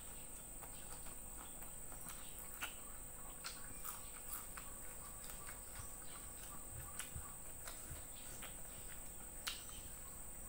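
Close-up chewing: soft, irregular mouth clicks and smacks of someone eating fried fish and rice by hand, over a steady high-pitched whine.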